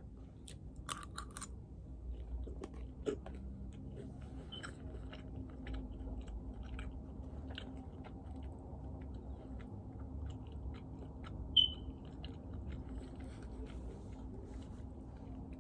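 A person chewing a mouthful of food with lip smacking and small wet clicks, over a low steady room hum. One brief high-pitched blip stands out about two-thirds of the way through.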